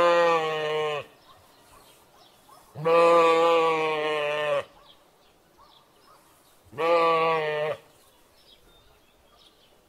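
Sheep baaing: the end of one bleat, then a long bleat about three seconds in and a shorter one about seven seconds in, with quiet between them.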